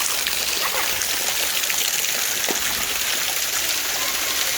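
Mountain stream water running steadily over rocks, an even splashing hiss.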